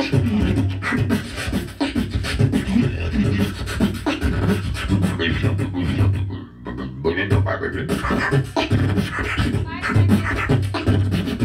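Solo beatboxing into a handheld microphone, amplified over a PA: a rhythmic pattern of bass kicks, snare-like clicks and hissing hi-hat sounds made with the mouth. There is a short break in the beat about six and a half seconds in.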